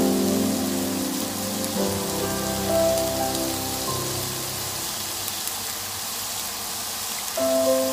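A stir-fry of prawns, green beans, cauliflower and fish cake sizzling steadily in a hot non-stick wok, with background music of held notes that thins out in the middle and comes back louder near the end.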